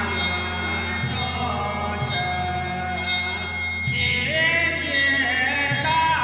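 Background music with a steady beat about once a second, under held, bell-like notes and a melody.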